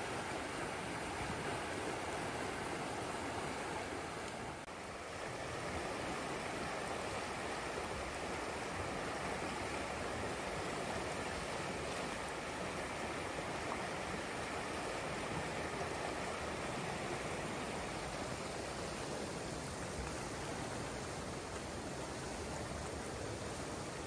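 Steady rush of a fast-flowing river running high, its water churning through rapids, dipping slightly for a moment about five seconds in.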